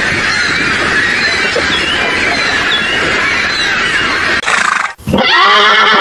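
A dense, steady chorus of small chirps for the first four seconds or so. Then a horse whinnies, a loud, long, quavering call that starts about five seconds in.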